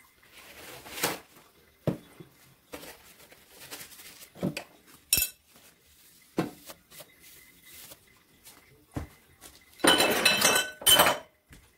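Kitchen dishes and utensils being handled: scattered knocks and clinks, then a loud clattering with ringing in two bursts near the end.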